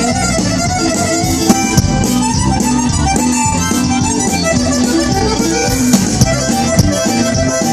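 Tejano band playing live, an instrumental passage with a sustained melody over a steady beat.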